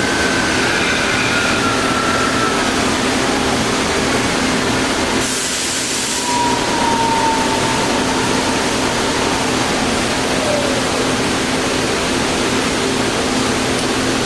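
Clausing 2276 variable-speed floor drill press running with a steady mechanical hum and a whine that slides lower in pitch, once in the first few seconds and again after about six seconds. A brief hiss about five seconds in.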